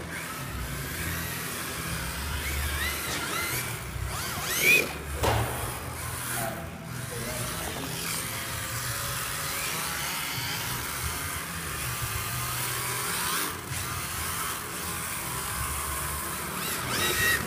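Electric motors of RC drift cars whining, rising and falling in pitch as the cars accelerate and slide, with a sharp rising rev and the loudest moment about five seconds in.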